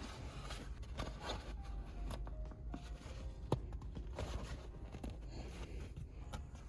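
Light clicks, knocks and handling noise of small plastic shifter-boot parts being fitted together by hand, with a few sharper clicks spread through.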